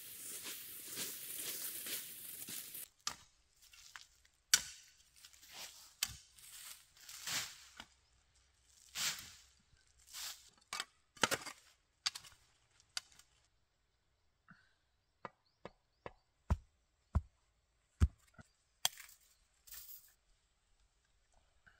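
An irregular series of sharp chopping knocks, after about three seconds of rustling. The blows come every second or so at first; about two-thirds of the way in they turn into a quicker run of shorter, sharper knocks.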